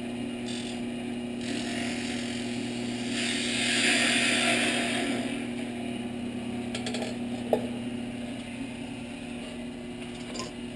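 Wood lathe running with a steady hum while a gouge cuts the spinning workpiece, with a hiss of shavings from about 1.5 to 5 seconds in. After that only the hum, with a sharp click about three-quarters of the way through.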